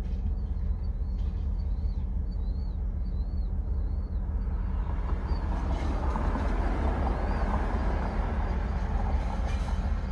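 Vehicle engine idling steadily, heard from inside the cab, with a low hum throughout. Small high chirps repeat in the first few seconds, and a broad rushing noise swells from about halfway through.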